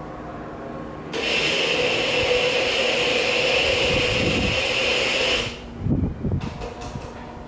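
A steady hiss starts abruptly about a second in and cuts off about four seconds later, followed by a few low thumps.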